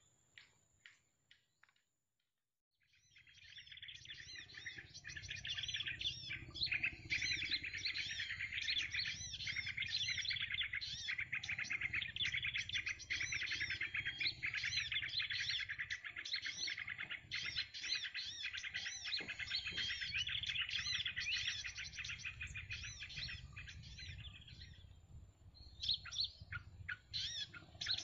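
Dense, fast chirping of a group of small birds, starting about three seconds in after a brief silence and thinning to scattered chirps near the end.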